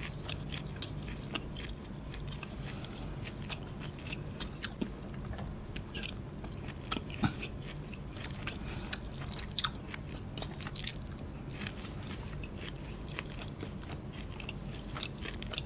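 A person chewing and eating noodles, close to the microphone: irregular short wet clicks and crunches of the mouth over a steady low hum.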